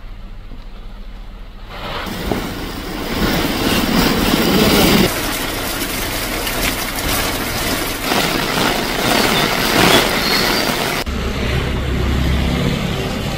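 Rain-soaked street traffic: auto-rickshaws and other vehicles driving through heavy rain, a steady hiss of rain and wet tyres mixed with engine noise. The sound grows louder about two seconds in, and a low engine hum takes over near the end.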